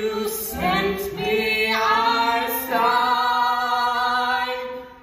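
A man and a woman singing a musical-theatre duet live, their voices moving through several notes and then holding one long final note together for about two seconds, which fades out just before the end.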